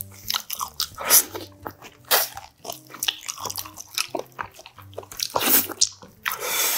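Close-miked eating sounds of boiled beef oxtail: irregular wet bites and chewing as meat is gnawed off the bone, with a longer, louder slurping suck on the bone near the end.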